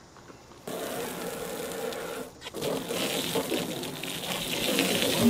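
Jet of water from a hose spraying and splashing against a vehicle-mounted touchscreen control panel, starting about a second in, breaking off briefly near the middle and then resuming.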